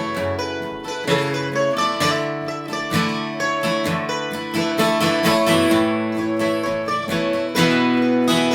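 Acoustic guitar playing the instrumental introduction of a slow song, chords strummed and picked in an even rhythm with the notes left ringing.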